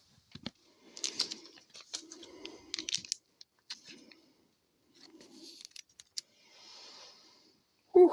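Trading cards being handled and flipped through by hand: irregular soft rubs and slides of card stock, with light clicks and taps.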